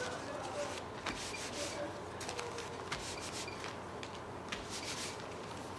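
A folded sheet of paper being rubbed over a freshly inked sumi-e painting on paper, making several dry rubbing strokes of paper on paper.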